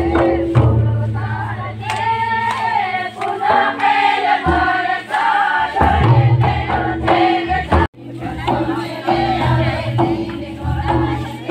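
Karma dance song: a group of voices singing over a steady low bass beat. The sound cuts out for an instant about eight seconds in.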